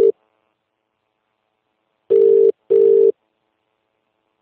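Telephone ringback tone, the double "ring-ring" of a low steady tone heard while a call rings unanswered. The end of one pair sounds at the very start, and a full pair comes about two seconds in.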